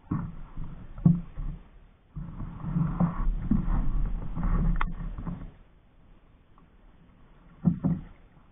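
Double-bladed paddle strokes beside a pack canoe: splashing water, sharp knocks at the start, about a second in and again near the end, and a longer, louder stretch of splashing and rushing water in the middle.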